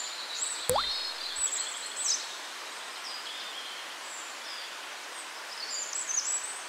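Small birds chirping over a steady hiss of outdoor ambience. A short rising sweep with a low thump comes under a second in.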